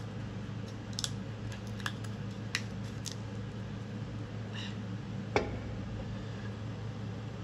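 Small clicks and taps from handling a paint jar and brush at the bench, with one sharper tap about five seconds in, over a steady low hum.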